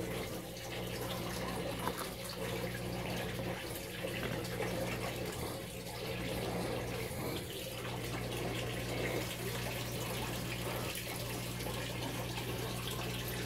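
Steady running and trickling water of an aquaponics system, with a low steady hum underneath.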